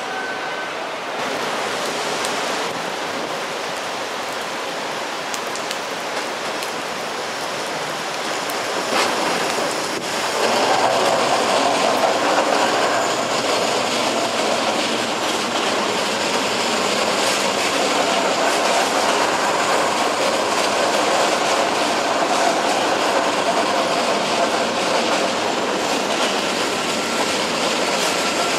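Passenger trains rolling past on the tracks: first an NS yellow-and-blue double-decker, then, louder from about ten seconds in, an NS Sprinter Lighttrain (SLT) electric multiple unit.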